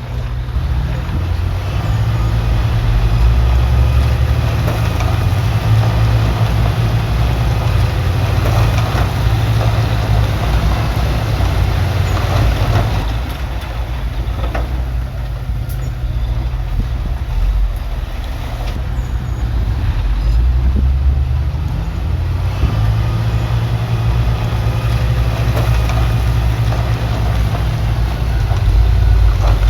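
Heavy earthmoving machine's diesel engine working under load, its level easing off about halfway through and building up again, with scraping and knocking over the top.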